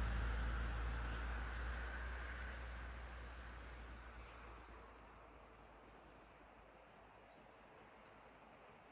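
A small bird calling in short, high chirps that fall in pitch, in two runs, the clearer one about six to seven seconds in. Under it a low rumble fades away over the first few seconds.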